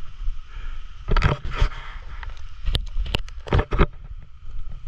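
Footsteps on a leafy forest floor: a few irregular steps and cracks of twigs, over a steady low rumble of wind on the handheld camera's microphone.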